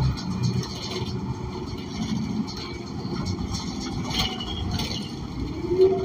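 Cabin sound of a city bus under way: the Cummins Westport ISL G natural-gas engine and road noise make a steady low rumble, with a few short rattles and clicks. Near the end a tone rises and then holds.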